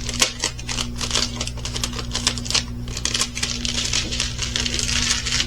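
Hands handling diamond-painting kit packaging: irregular crinkling of plastic with many quick light clicks and taps.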